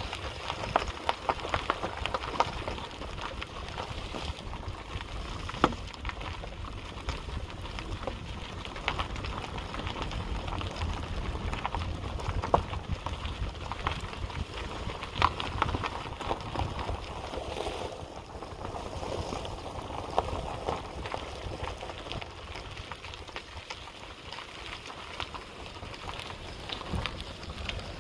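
Wind rumbling on a handheld microphone, with scattered light clicks and thuds of footsteps over grass and gravel.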